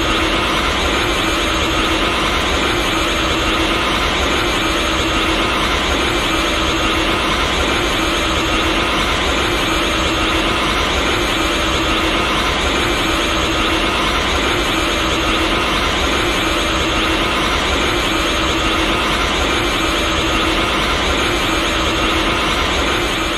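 Ultra Instinct aura sound effect: a loud, steady rushing hiss with a faint held hum beneath it, unchanging throughout.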